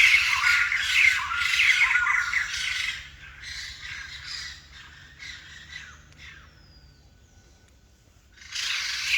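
White-crested laughingthrush giving loud, harsh, rapid chattering calls that die away after about three seconds; the loud calling starts again near the end.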